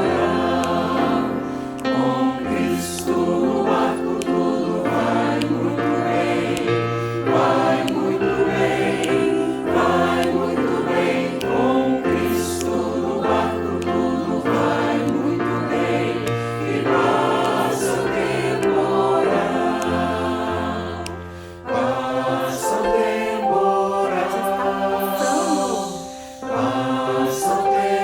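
Choir singing a Christian hymn in harmony over sustained low notes, with two brief dips in loudness between phrases near the end.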